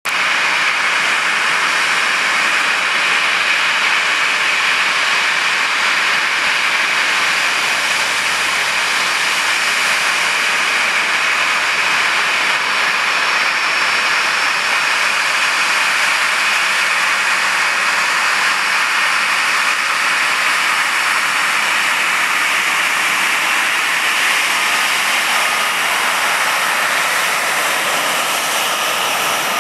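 Boeing 737-800's CFM56-7B jet engines running at idle: a steady high whine over a rushing hiss, unchanging in level.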